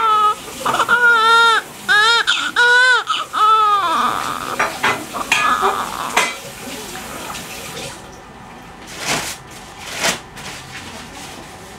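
Newborn baby crying in a series of short, arching wails for about the first four seconds, then falling quiet. A few soft clinks or knocks follow later.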